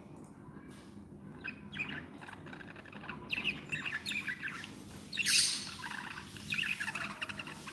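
A flock of budgerigars chattering with many short chirps and warbles, sparse at first and busier after about three seconds. A brief noisy burst, the loudest moment, comes about five seconds in.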